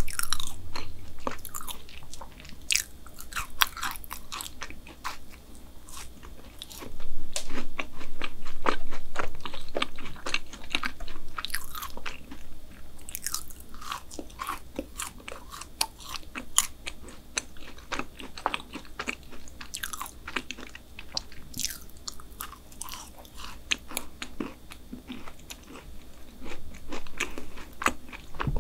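Close-miked chewing and biting of a double chocolate chip brownie: many short wet clicks and smacks, loudest for a few seconds after a fresh bite about seven seconds in.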